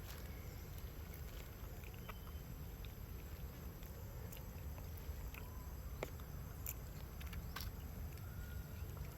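Outdoor ambience: a steady low rumble with scattered faint clicks and a few short, faint chirps.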